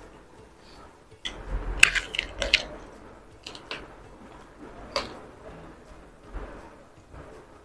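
Close-up eating sounds of a man biting into a fried chicken piece and tearing meat from it: a cluster of crunchy bites and wet smacks between about one and three seconds in, and a few more around four and five seconds, then chewing.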